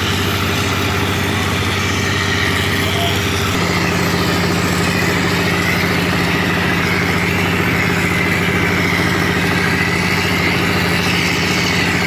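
Wall-plastering machine running steadily, its note shifting about three and a half seconds in.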